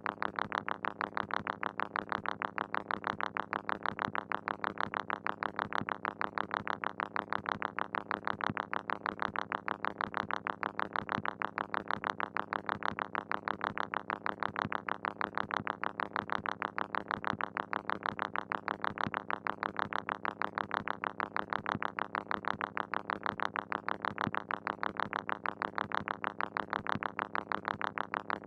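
Moog Mother-32 analog synthesizer playing a fast, even stream of short pulses, about four a second, over a steady low tone. Its sound is being modulated by a Comdyna GP-6 analog computer solving the Lorenz chaos equations.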